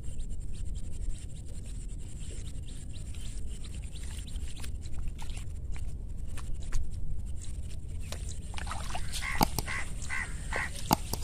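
A steady low rumble with scattered small rustles and clicks. About eight and a half seconds in, a duck quacks four or five times in quick succession.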